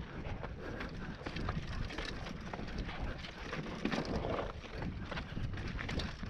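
Mountain bike descending a rocky dirt singletrack at speed: tyres crunching over dirt and stones, with a steady clatter of small knocks from the bike.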